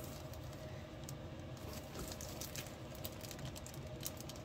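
Fingers and fingernails picking at the clear plastic sleeve of a rolled diamond-painting canvas: faint crinkling with light scattered clicks, a few bunched about two seconds in and near the end.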